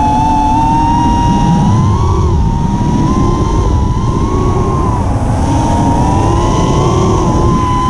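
Electric motor and propeller whine of an FPV chase aircraft in flight, a steady high-pitched tone that rises and falls a little with throttle, over wind rumble on the onboard camera microphone.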